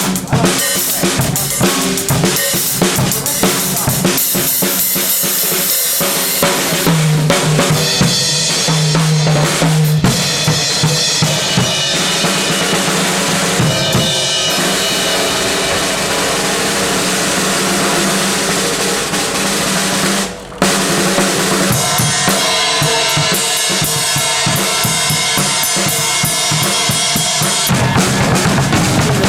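Drum kit played during a band's sound check, a dense run of drum strokes with a brief pause about twenty seconds in.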